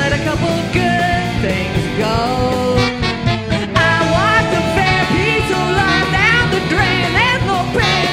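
Live rock band playing between sung lines, drums and bass under a lead line; from about four seconds in the lead plays quick notes that slide upward.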